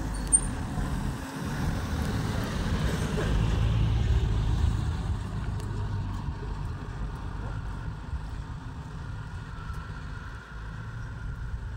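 A motor vehicle's engine running with a steady low rumble, loudest about four seconds in.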